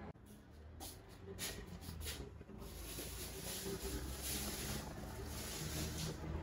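A few light knocks and rustles at a kitchen sink, then water running steadily from the tap into the sink.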